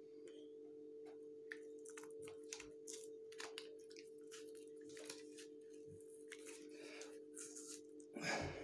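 A deck of playing cards being torn in half by hand: repeated crackling and crunching of the card stock as it gives way, with a louder tearing burst near the end.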